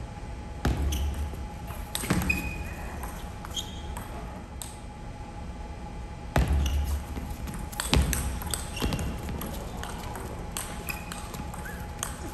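Table tennis ball clicking sharply off the paddles and the table during rallies, in a large hall. Short squeaks of shoes on the court floor and a few low thuds from the players' footwork come between the hits.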